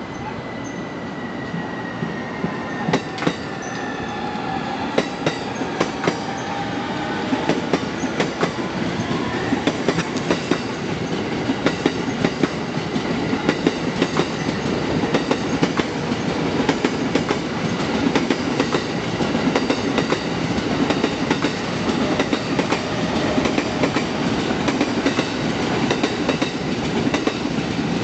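Freight train of tank wagons hauled by an EF510 electric locomotive rolling closer, its wheels clicking over the rail joints more and more often and growing louder. A high whine slides slowly down in pitch over the first several seconds.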